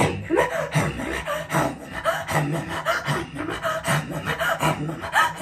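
A woman's amateur attempt at throat singing: a low held vocal drone with shifting overtones above it, in short phrases broken by breaths.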